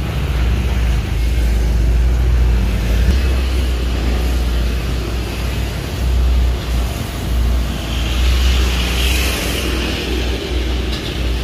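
Gasoline chainsaw engine running at a low, idling pitch, loud and steady with some wavering in level.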